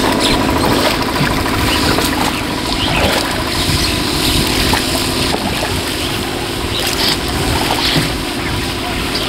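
Water sloshing and splashing around a small wooden rowing boat as it is rowed with a bamboo oar, under a steady noisy wash. A steady hum fades out in the first couple of seconds.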